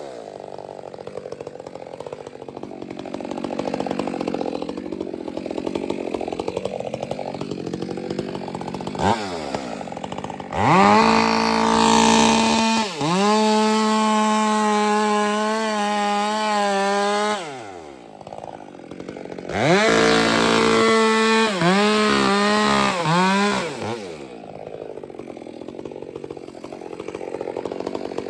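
Two-stroke chainsaw idling, then run up to full throttle twice for several seconds each. The pitch sags at moments as the chain bites into wood, and the saw drops back to idle between and after the runs.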